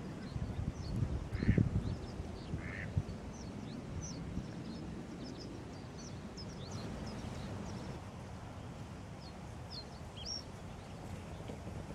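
Wetland birds calling: two short rasping calls, about one and a half and three seconds in, among many quick, high, thin chirps from small songbirds. A low rumble is heard near the start.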